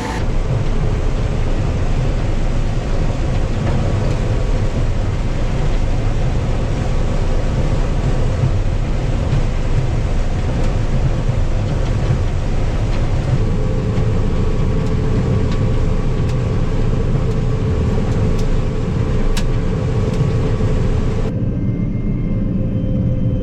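Combine harvester running steadily under load while shelling corn, a continuous heavy engine and machinery drone. About 21 s in the sound abruptly turns duller as its upper range drops away.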